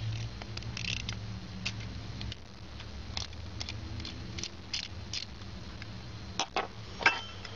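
Scattered small clicks and taps of metal parts being handled as the flint spring is refitted into a Zippo lighter insert, two sharper clicks near the end.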